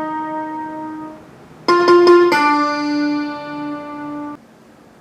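Piano-voiced keyboard chords from the three primary chords of C major, played for chord ear training. One chord fades out over the first second. Then comes a quick run of repeated strikes and a second chord held for about two seconds, which cuts off abruptly.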